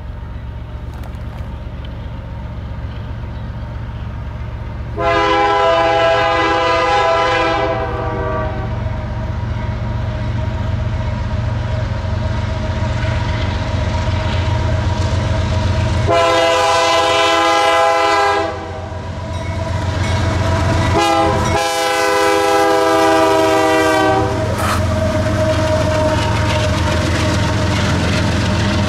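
Canadian Pacific freight train's lead GE ES44AC diesel locomotive sounding its air horn in the grade-crossing pattern, long, long, short, long, as it approaches a crossing. A steady low diesel rumble and rolling train noise run underneath.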